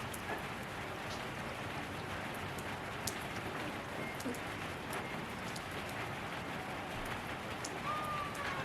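Steady rain falling: an even hiss with scattered sharp drop ticks. A short gliding tone comes in near the end.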